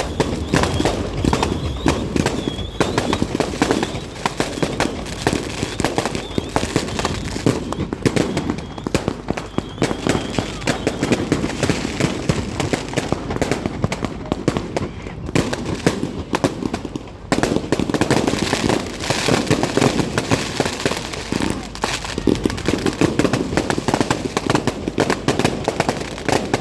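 Fireworks going off without let-up: a dense, continuous run of cracks and bangs.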